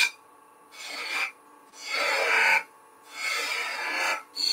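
Skew chisel cutting into spinning wood on a lathe, a dry rasping scrape made in three short cuts with brief pauses between them, as the chisel is worked deeper to form a small taper.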